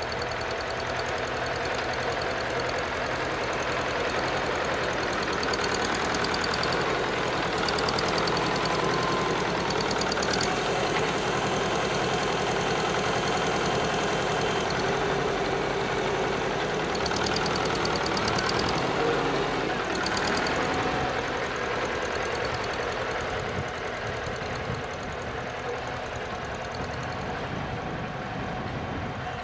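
Farmall Super C's four-cylinder gas engine running steadily under load as the tractor drags a rear blade through loose dirt. It grows louder as the tractor passes close by, then fades as it pulls away near the end.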